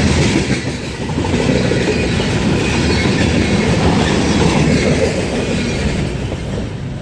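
Railroad cars rolling past with steady rumble and clickety-clack of wheels over the rail, with a faint wheel squeal; the sound eases off slightly near the end.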